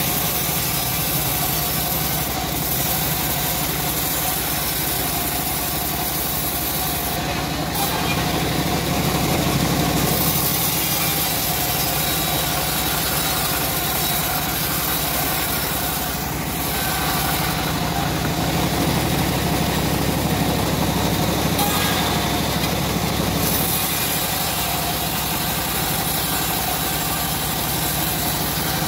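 Homemade band sawmill running steadily as its blade saws lengthwise through a short teak log.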